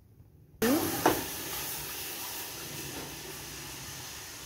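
Milk poured into a hot steel pot of melted ghee, cardamom and sugar, hissing sharply as it hits the hot fat; the hiss starts suddenly about half a second in and slowly dies down.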